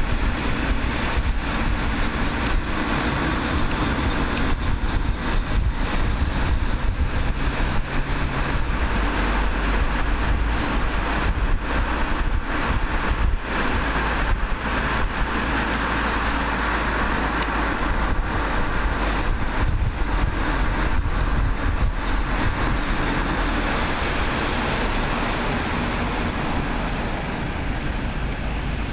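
Cars driving on an open road: a steady rush of tyre, engine and wind noise with a heavy low rumble. A low engine hum fades out about eight seconds in.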